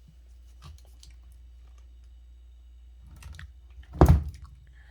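Handling noise: a few light clicks and some rustling, then one loud knock about four seconds in, over a low steady hum.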